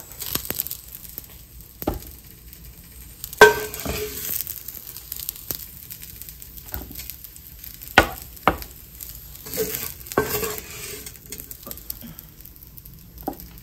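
Broccoli sizzling in a skillet while a wooden spoon stirs and scrapes it, with several sharp knocks of spoon against pan, the loudest about three seconds in and again near the middle.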